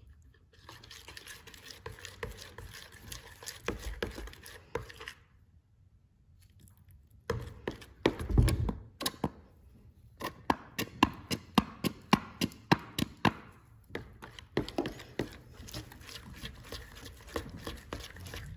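A metal spoon stirring slime in a mixing bowl as activator is worked into the glue: clicks and taps of the spoon against the bowl, falling into a quick rhythm of about three a second for several seconds past the middle. A louder low thump comes about eight seconds in, and there is a short lull shortly before it.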